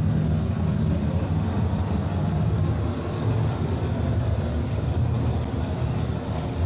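Escalator running: a steady low mechanical rumble from the moving steps and drive, heard while riding it.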